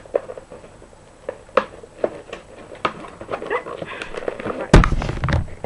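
Plastic and cardboard toy packaging crackling and clicking as it is pried apart by hand, with one loud thump near the end.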